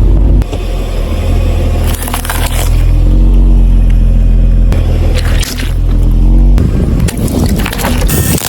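A car engine runs low and steady, rising in pitch for a moment, while the tyres roll over objects and crush them, with short crunches about two seconds in, about five seconds in and near the end.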